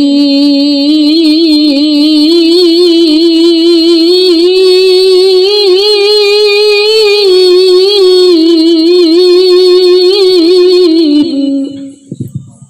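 A woman reciting the Quran in the melodic tilawah style, holding one long, richly ornamented phrase with wavering, trilling pitch for about eleven seconds before breaking off. A brief low thump follows near the end.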